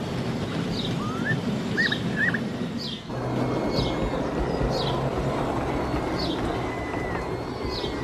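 Birdsong: one bird repeats a short, falling high call about once a second, with a few rising calls from other birds, over a steady low background rumble that breaks off and changes abruptly about three seconds in.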